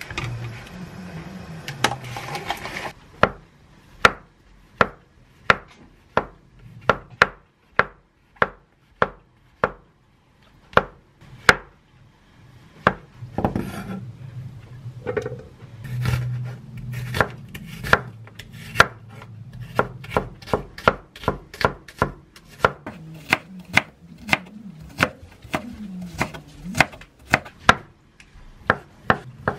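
Kitchen knife slicing button mushrooms and then chicken breast on a wooden cutting board: a steady series of sharp knocks, about one to two a second. A few seconds of rustling come before the first knock.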